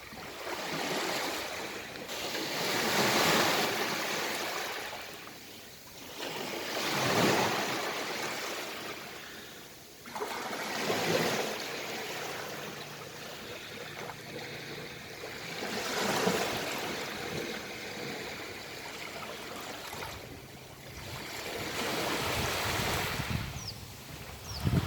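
Sea waves breaking on a beach. About five surges of surf rise and fall, a few seconds apart.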